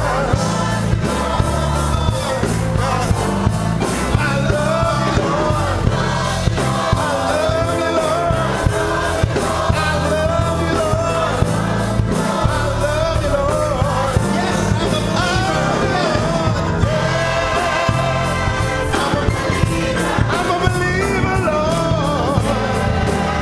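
Gospel choir singing with a live band, over a steady drum beat and bass line.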